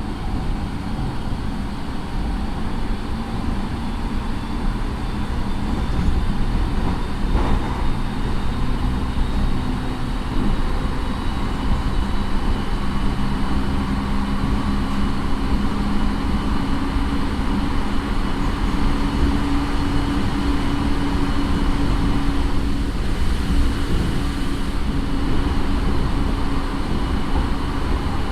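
Running sound inside a JR 209 series electric motor car with a Mitsubishi IGBT inverter and MT68 traction motors, moving at speed. A steady rumble of wheels on rail carries a motor and gear hum and a thin, steady high whine.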